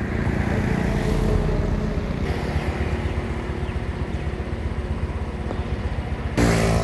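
Motorcycle riding along at a steady pace: a continuous low engine drone mixed with wind and road noise. About six seconds in, a louder sound with a clear pitch cuts in.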